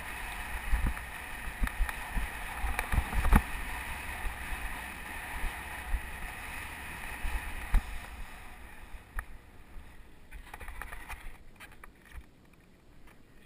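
Mountain bike rolling fast down a dirt trail, heard from a helmet camera: steady wind rush and tyre noise with frequent knocks and rattles over bumps. It fades after about eight seconds, leaving only scattered clicks.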